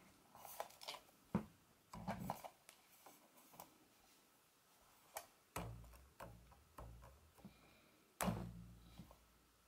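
Faint handling of a stacked set of Snow Peak metal Sierra cups as a silicone tableware band is stretched over them: scattered light clicks, taps and rubbing, with a few sharper knocks, the loudest near the end.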